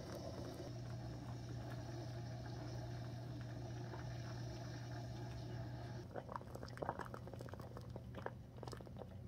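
Technivorm Moccamaster drip coffee maker brewing: hot water gurgling and spraying steadily onto the grounds over a low steady hum. About six seconds in the steady spray sound stops and gives way to irregular ticks and pops as the brew cycle comes to its end.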